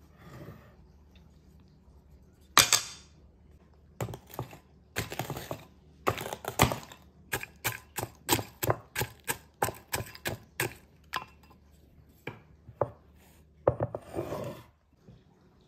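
Oreo cookies being crushed with a wooden spatula in a glass bowl: a loud knock about two and a half seconds in, then crunching and a quick run of sharp knocks, about three a second, through the middle. A short rattling rustle of the broken cookie pieces in the bowl near the end.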